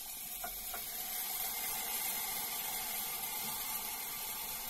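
Steady hiss of masala cooking in an open aluminium pressure cooker on a gas stove, with a couple of faint taps in the first second as soaked rice is tipped in from a plastic bowl.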